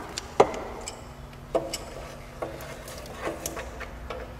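Scattered metallic clicks and knocks of a ratchet with a Tite-Reach extension wrench and socket being worked down into a cramped engine bay toward a heat-shield fastener, a few sharp taps about a second apart over a faint steady low hum.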